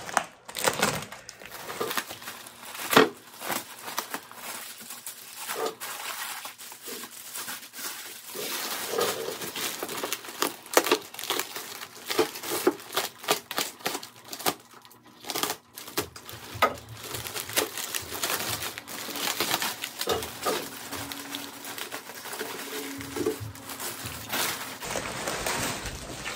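Plastic bag and stretch wrap crinkling and tearing as they are cut and pulled off a packed guitar, a continuous irregular crackle with scattered sharper clicks.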